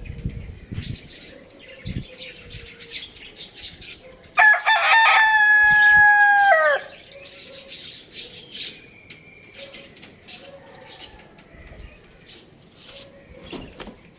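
A rooster crows once, a single loud call of about two and a half seconds that starts about four seconds in and drops in pitch at the end. Short chirps, clucks and scratchy clicks come from the birds before and after it.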